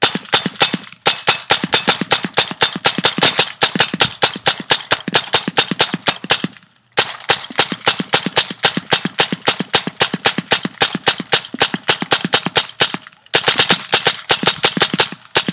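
Azodin Kaos semi-automatic blowback paintball marker firing on CO2 in long rapid strings of shots, several a second, with short breaks about a second in, about seven seconds in and near the end.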